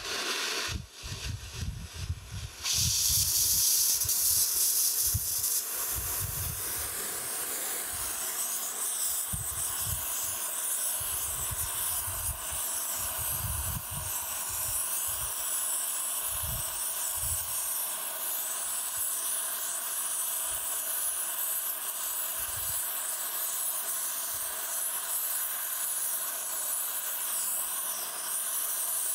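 Oxy-acetylene torch with a smaller rosebud tip, lit and hissing as it heats a cracked cast-iron casting for brazing. About three seconds in, the hiss jumps much louder as the yellow flame is turned up to a sharp blue one, then holds steady. Scattered low thumps come through in the first half.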